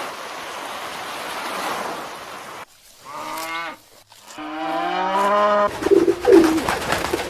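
A steady hiss, then after a sudden cut a cow mooing twice, a short call and then a longer one, and after another cut pigeons cooing.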